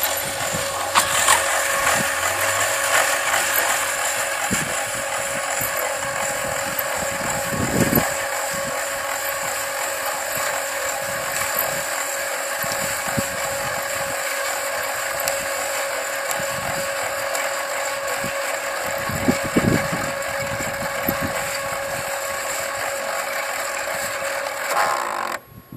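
SteppIR element housing unit's motor and gear train reeling its antenna tape element back onto the spool, retracting the element. A steady mechanical whine with a constant tone that cuts off near the end as the retraction finishes.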